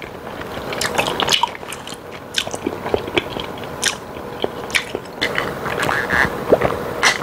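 Close-miked chewing of sauced boneless chicken feet: irregular wet, sticky smacks and clicks of a mouthful being chewed. Near the end, a sip from an iced drink.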